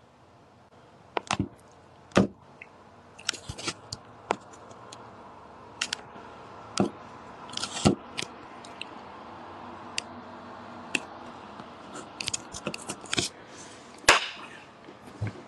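A string of irregular sharp clicks and knocks, some in quick clusters, over a faint steady background that slowly grows louder.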